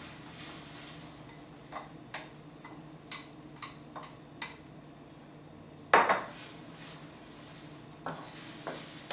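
Wooden spatula stirring and scraping beaten eggs in a nonstick frying pan, tapping the pan every half second or so, over sizzling. A louder knock about six seconds in.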